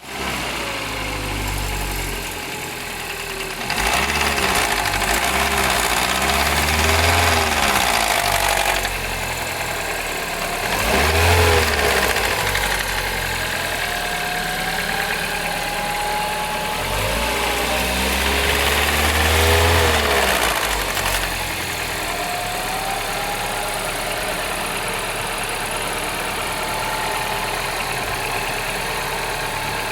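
Citroën DS3 THP's 1.6-litre turbocharged four-cylinder petrol engine idling with a rattle, blipped up and back down several times in three spells, about 4, 11 and 17 seconds in.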